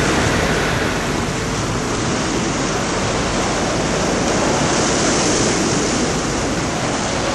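Steady rushing beach ambience of wind and sea surf, with wind buffeting the microphone, swelling slightly about five seconds in.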